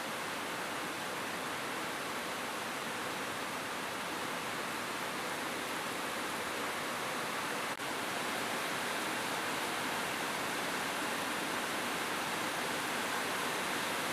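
Rain falling steadily on a roof: an even hiss of pattering drops. About halfway through there is a momentary dropout.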